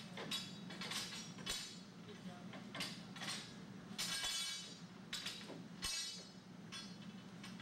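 Steel fence pickets clinking against one another and the metal jig as they are set by hand into an automatic fence welding machine: a string of short, ringing metal clinks, about one every half second to second. A steady low hum runs underneath.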